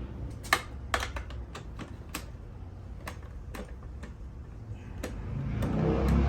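Irregular sharp clicks of a screwdriver and small metal parts as screws holding a motorcycle's fairing-mounted radio are worked loose. A low rumble swells near the end.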